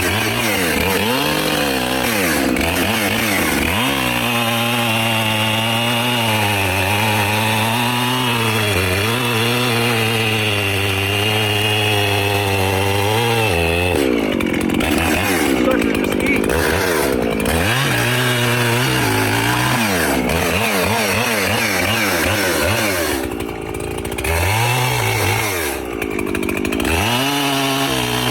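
Echo CS-7310P two-stroke chainsaw running just after a cold start and being revved. The engine is held at steady high revs for about ten seconds, then falls back and is blipped up again several times.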